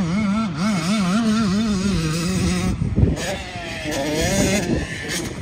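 Dirt bike engine revving up and down in quick waves as the rider works the throttle, in two runs with a short break about three seconds in.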